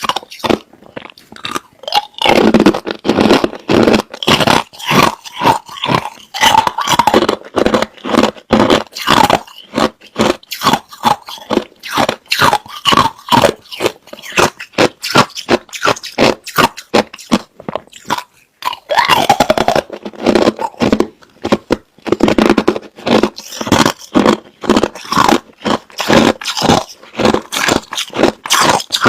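A person biting and chewing hard, clear crushed ice right at the microphone: a fast, loud run of sharp crunches, easing off briefly near the start and again about two-thirds through.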